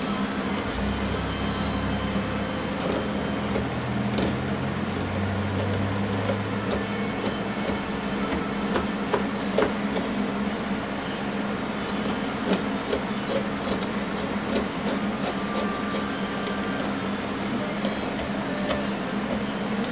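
Steady hum of an electric fan, with faint scattered clicks and scrapes of a hobby knife shaving wood. A low rumble sits under it for the first several seconds.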